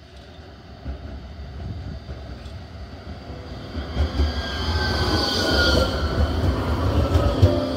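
Nottingham Express Transit tram approaching and passing close by, its wheels rumbling on the rails, growing louder over the first few seconds. A high wheel squeal and a whine that falls in pitch come as it goes past.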